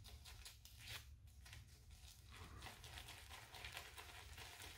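Faint, fast scratchy crackle of a wet boar-bristle shaving brush being swirled on a puck of bay rum shaving soap, loading the brush.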